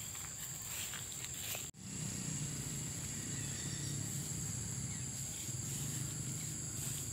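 Steady high-pitched insect drone over low outdoor background noise, with a brief dropout a little under two seconds in.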